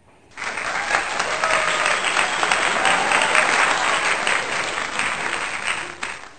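Applause: dense, even clapping that cuts in sharply a moment after the start and stops abruptly near the end, much louder than the surrounding sound, as if added as a sound effect.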